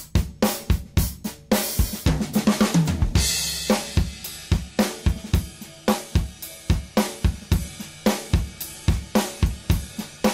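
Recorded rock drum kit playing a steady groove of kick, snare, hi-hat and cymbals, with a falling tom fill into a cymbal crash about two to three seconds in. The drum bus runs through a fast-attack, fast-release bus compressor set up as a limiter to shave off the snare peaks, squashing the hits a bit much, and it is switched out and back in partway through.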